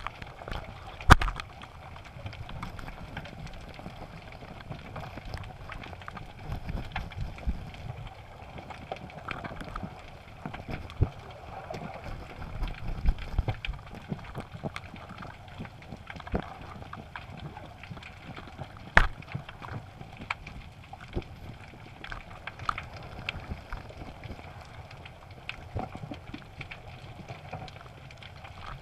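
Underwater ambience heard through a camera housing: a low, rumbling wash of swell and surge, with many small clicks and a few sharper knocks, one about a second in and one a little past the middle.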